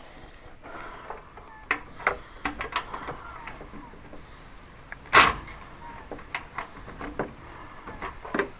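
Socket-set tools clicking and knocking as a socket, extension and universal joint are fitted onto bolts and tried for size. There is one louder knock about five seconds in.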